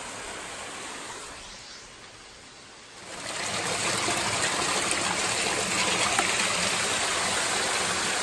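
A small waterfall splashing down a mossy rock gorge. About three seconds in, the water becomes louder and closer: steady splashing as the falling stream pours into and over a squeeze-filter water pouch held under it to fill.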